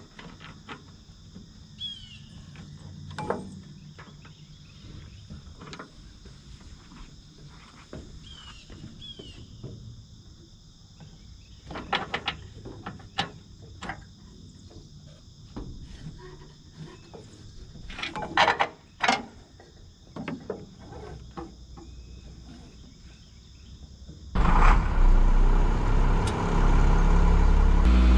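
Steady high insect drone with scattered light clicks and knocks. About 24 seconds in, the bucket truck's engine comes in much louder and runs steadily to the end.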